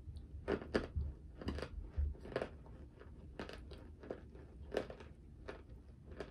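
Close-up chewing of a mouthful of cornstarch, with short crisp crunches coming irregularly, roughly twice a second.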